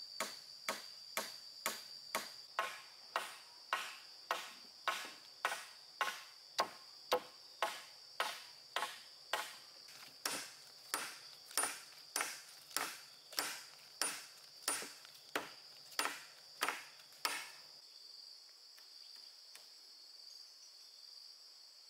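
A steady run of sharp knocks, about two a second, that stops about seventeen seconds in. Under them runs a continuous high-pitched insect drone, crickets or cicadas.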